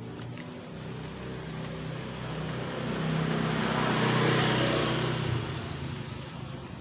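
A motor vehicle engine running with a steady low hum, growing louder to a peak in the middle and then fading; the hum cuts off about five and a half seconds in.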